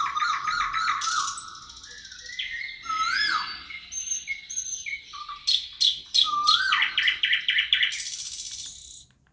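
Several songbirds singing over one another: fast trills of repeated notes, sharp chirps and rising-and-falling whistled phrases. The chorus stops abruptly just before the end.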